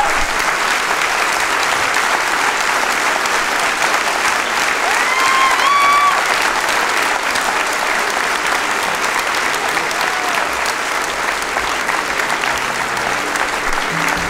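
A large theatre audience applauding steadily in a standing ovation. About five seconds in, one high call rises in pitch over the clapping.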